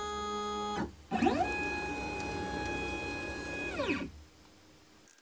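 Shapeoko Pro CNC router's stepper motors driving the gantry along the table. A steady whine stops just under a second in. After a short pause a second move begins: the whine rises in pitch as the motors speed up, holds steady, then falls as they slow to a stop about four seconds in.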